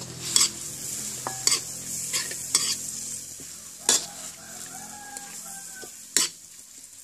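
Metal ladle scraping and knocking against a steel wok as bamboo shoots and holy basil are stir-fried, over a steady frying sizzle. There are about six sharp scrapes at irregular intervals.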